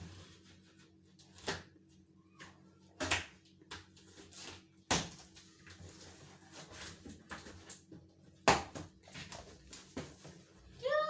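Irregular knocks, thumps and rustles of a washing machine's packaging being handled and pulled open. Four sharp knocks stand out, about 1.5, 3, 5 and 8.5 seconds in.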